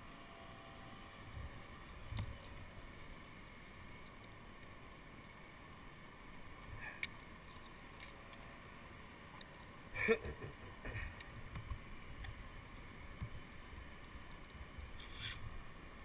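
Faint handling sounds of climbing gear: a few sharp clicks of carabiners and hardware on a harness, with rope and sling rustling, the loudest click about ten seconds in followed by a run of small knocks.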